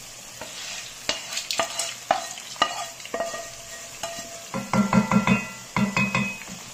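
Mutton sizzling as it fries in a pan while roasted whole spices (dried red chillies, coriander seeds, bay leaves) are tipped in from a bowl, with a scatter of sharp clicks as they drop. Near the end comes a quick run of loud, ringing knocks as the last spices are tapped out into the pan.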